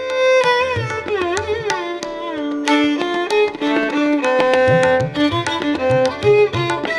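Raga melody in South Indian style played on a Casio XW-P1 synthesizer: a lead line that bends and glides between notes over held notes and a steady pattern of drum strikes.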